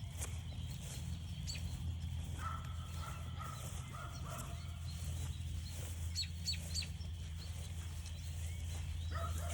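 Evening frog chorus as a steady high trill in the background. Over it come short, sharp falling bird chirps, several in quick succession about six seconds in. A short run of lower pitched calls comes between about two and four and a half seconds in.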